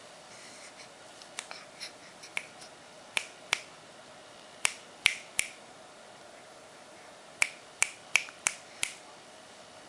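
A series of sharp snapping clicks, some single and some in quick runs of three to five about a third of a second apart, the loudest around the middle and near the end.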